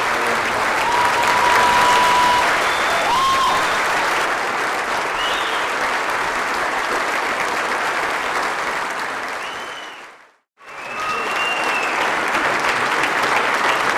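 A large audience giving a standing ovation, clapping steadily. About ten seconds in the applause fades out to a brief silence and then comes back.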